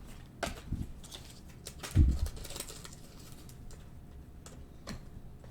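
Trading cards being handled on a table: scattered light clicks and taps as cards are flipped and set down, with one heavier thump about two seconds in.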